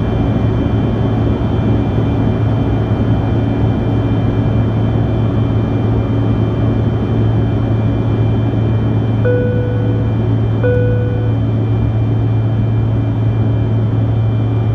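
Steady cabin drone of a Bombardier CRJ-200 in flight: its rear-mounted jet engines and airflow heard from inside the cabin. About two-thirds of the way through, a cabin chime sounds twice, two short tones about a second and a half apart.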